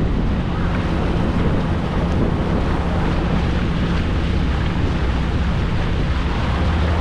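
A boat's engine running steadily under way, a low even hum, with wind buffeting the microphone and water rushing past.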